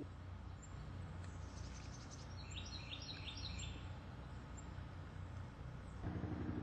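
Outdoor background noise, a steady low rumble, with a short run of rapid high chirps in the middle. A louder low hum comes in near the end.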